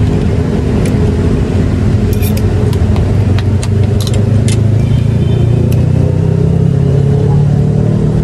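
Steady rumble of passing road traffic, with a heavier engine rumble building through the second half as a large vehicle goes by. A few light clinks of a spoon and fork against the noodle bowl come in the first half.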